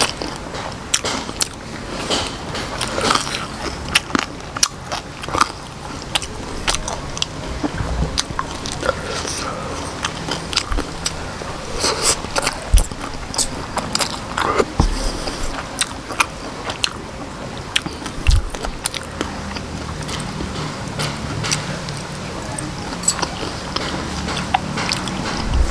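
Close-up eating sounds of a man chewing octopus and Khmer rice noodles in chili sauce, with many quick wet mouth clicks and smacks.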